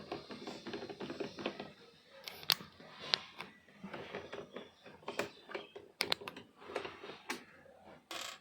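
Small clicks and taps of hand tools and plastic parts as a Mahindra Xylo's instrument cluster is taken apart: a quick run of light clicking, then a series of sharper separate clicks, and a short scrape near the end.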